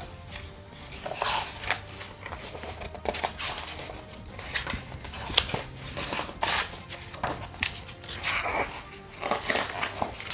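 Glossy pages of a large hardcover art book being turned by hand, one after another, each a short paper swish and flap, about once a second. Soft background music runs underneath.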